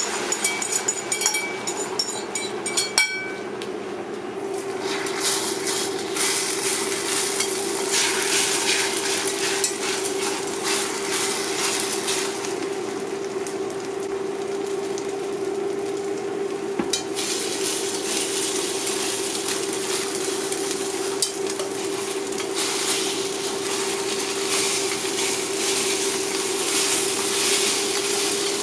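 Beaten egg with chopped scallions sizzling as it fries in hot oil in a cast-iron skillet while it is stirred and scrambled. There are a few light clinks in the first few seconds, and a steady hum runs underneath from about four seconds in.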